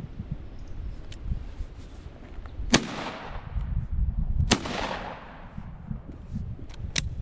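Two shotgun shots about a second and a half apart, each ringing out with a long fading echo, followed near the end by a short sharp click.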